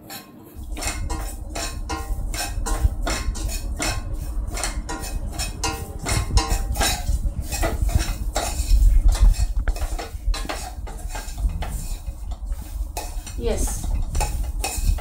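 A steel spoon scraping and clinking against the inside of a stainless steel pot in quick, repeated strokes as it stirs grated coconut, chillies, spices and rice grains being dry-roasted.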